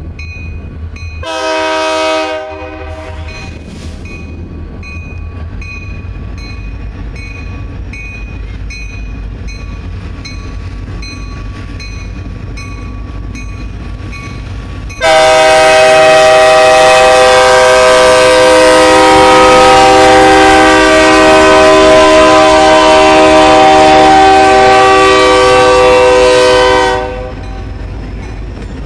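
Diesel locomotive air horn on a passing freight train. It gives one short blast about a second in, then a long, loud blast of several notes sounding together, lasting about twelve seconds from halfway through. Underneath runs the steady low rumble of the locomotives' diesel engines.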